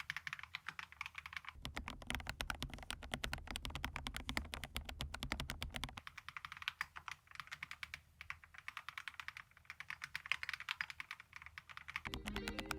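Fast, continuous typing on a mechanical keyboard fitted with hand-lubed Huano Cherry Blossom linear switches, a dense run of soft key clacks. Music with held notes comes in near the end.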